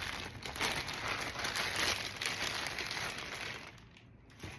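Packing wrap crinkling and rustling as a wrapped fossil is unwrapped by hand; it dies down about three and a half seconds in, followed by a single short knock near the end.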